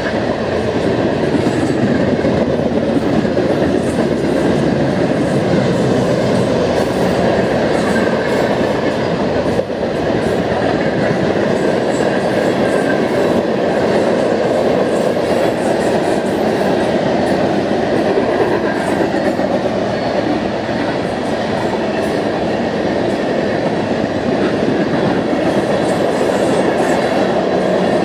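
Loaded-looking BNSF open-top coal cars rolling past at speed: a steady, loud rumble of steel wheels on rail, with scattered clicking as the wheels pass.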